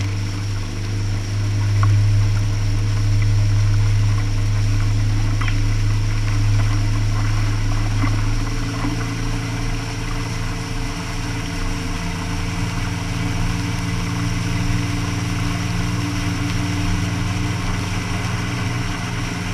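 Boat engine running steadily at speed, a low hum, with water rushing and spraying along the hull. The engine note shifts slightly about eight seconds in.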